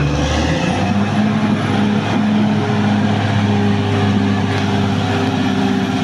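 Caterpillar D6R XL crawler bulldozer's diesel engine running steadily as the dozer works forward pushing soil, its note stepping up slightly about half a second in.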